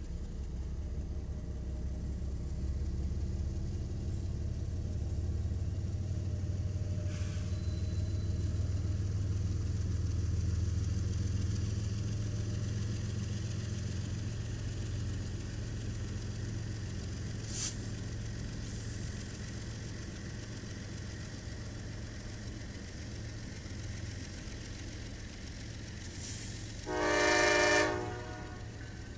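CSX diesel-electric freight locomotives passing slowly with a steady low engine rumble. A single sharp click comes past the middle, and near the end there is one short horn blast about a second long.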